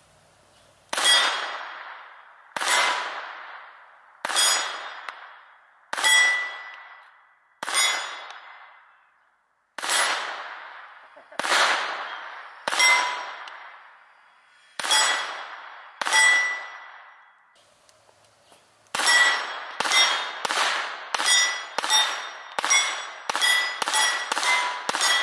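Pistol shots at steel plate targets, each sharp crack followed by the ring of the struck steel. About ten single shots come one to two seconds apart, then after a short pause a faster string of about a dozen, roughly two a second.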